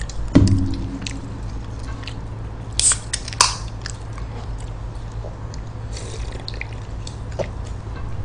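Close-miked mukbang eating sounds: chewing and small wet mouth clicks. About three seconds in, an aluminium soda can's tab cracks open with a sharp hiss of escaping fizz. A brief low sound comes about half a second in.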